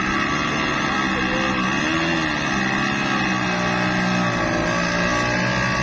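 Vehicle engine running loud and steady as it pulls up a steep hill.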